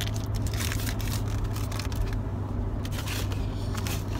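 Cardboard and plastic packaging of an airsoft pistol box being handled, scraping and crinkling a few times, over the steady low hum of a car's cabin while driving.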